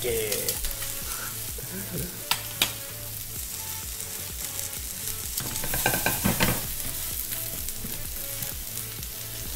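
Brussels sprouts sizzling as they sear in a frying pan, being stirred. A utensil knocks sharply against the pan twice about two and a half seconds in, and there is a burst of stirring clatter around six seconds in.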